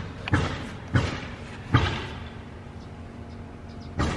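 Four sharp knocks, unevenly spaced and each dying away quickly, from the trailer's leaf-spring shackle hardware being handled and fitted.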